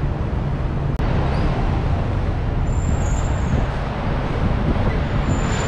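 Double-decker tour bus riding through city traffic, heard from the open top deck: a steady low rumble of engine and road noise. A faint high whine sets in about two and a half seconds in.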